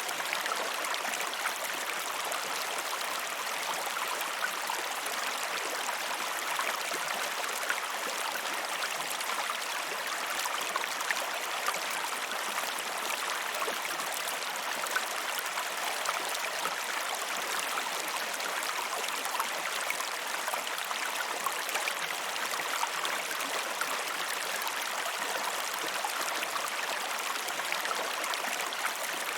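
A river or stream flowing steadily, a continuous rushing hiss of water with fine splashing and gurgling throughout.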